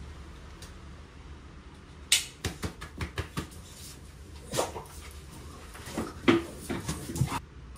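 Sharp clicks and taps from a pit bull-type dog's harness buckles and claws on a laminate floor as it stands up and jumps against a person while being harnessed. A quick cluster of clicks comes about two seconds in, and more follow in the second half.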